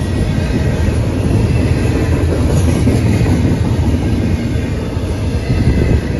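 Double-stack intermodal freight train rolling past: a loud, steady rumble of well-car wheels running on the rails.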